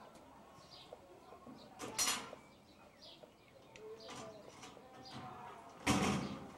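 Corrugated-metal garden gate rattling and banging twice, about two seconds in and again near the end, as its jammed latch is worked by hand. Birds chirp faintly in between.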